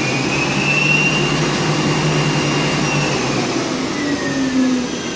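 CNC lathe spindle running fast with a high whine that climbs in pitch, holds for about two seconds, then falls away near the end, over the steady noise of the tool taking a facing cut across the end of the spinning stock.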